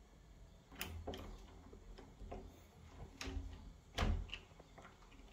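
A few light clicks and knocks on a wooden panel door, then its round doorknob is turned with a latch click about four seconds in.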